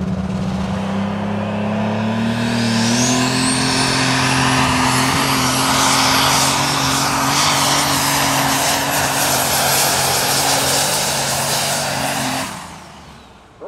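Multi-turbocharged Super Stock pulling tractor engine running at full throttle during a pull. Its pitch climbs in the first seconds while the turbochargers' high whistle rises and then holds steady. The sound dies away near the end as the run finishes.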